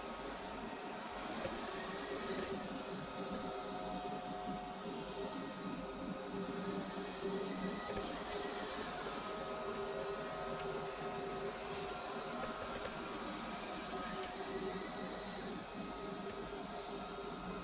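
Vorwerk VR100 (Neato XV11) robot vacuum running during a cleaning run: a steady motor and brush hum with a constant high whine, and a few fainter tones that come and go as it moves.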